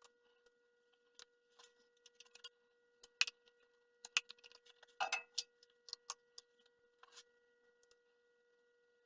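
A scattered run of light, irregular clicks and taps, loudest a few seconds in, over a faint steady whine.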